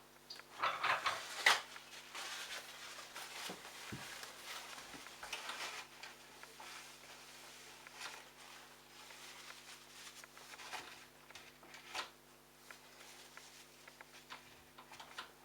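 Hands working on a washing machine's drain-pump filter: irregular rustling and scraping with scattered clicks and knocks, loudest in a cluster of scrapes about a second in, over a faint steady hum.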